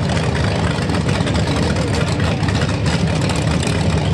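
Drag race cars' engines idling at the start line, a loud, steady, choppy rumble with no revving.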